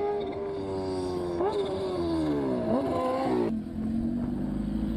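High-revving racing engine holding a steady note, then its pitch jumps up and falls away twice. It cuts off abruptly about three and a half seconds in, leaving a low rumble.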